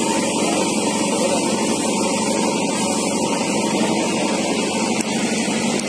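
An engine running steadily, a constant drone that does not change.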